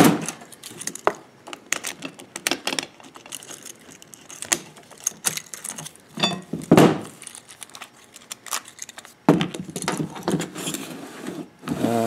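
Keys jangling and a series of metal clicks and clunks as two bicycle U-locks are unlocked with their keys and the hardened-steel shackles are pulled out of the crossbars.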